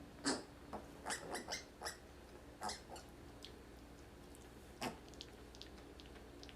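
A pet giving a run of short, squeaky calls, several in the first three seconds and one more about five seconds in.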